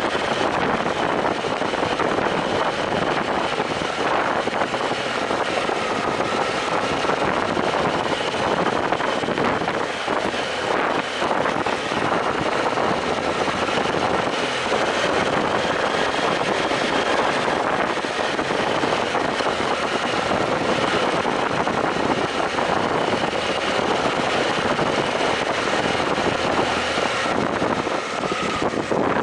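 BMW F800GS motorcycle's parallel-twin engine running steadily while riding along a dirt track, heard from the rider's helmet, mixed with a steady rush of wind and road noise.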